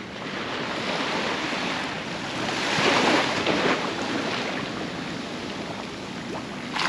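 Sea surf breaking on the beach, a steady wash that swells to a peak about three seconds in and then eases back.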